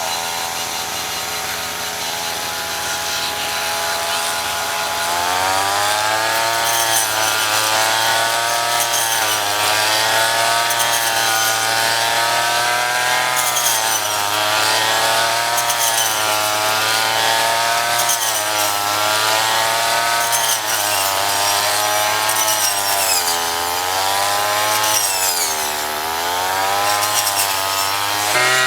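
Small 35 cc petrol engine of a handheld rice reaper running at high speed. Its pitch steps up about five seconds in, then keeps rising and falling every second or two.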